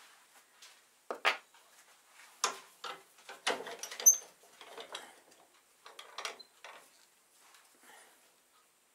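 Small hard objects handled and set down: irregular clicks, knocks and scrapes. The loudest comes about four seconds in, with a brief metallic ring.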